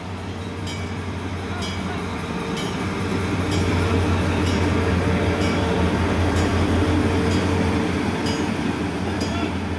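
Henschel diesel locomotive running past at close range hauling passenger coaches: a steady low engine drone that swells to its loudest mid-way and then eases, with sharp clicks about once a second.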